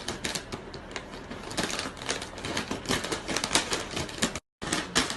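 Rapid clicking and tapping, a dense clatter of sharp clicks that grows more regular, broken by a brief cut to silence about four and a half seconds in.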